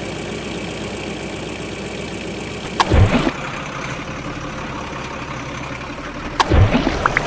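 A steady engine-like idling hum, with two short knocks and a low thud, one about three seconds in and one about six and a half seconds in.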